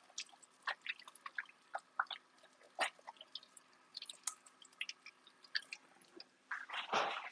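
Meat frying in a skillet, popping and crackling in scattered sharp pops, with a longer, louder rush of noise near the end.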